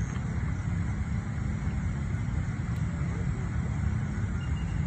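Steady low outdoor rumble with faint, indistinct voices in the distance.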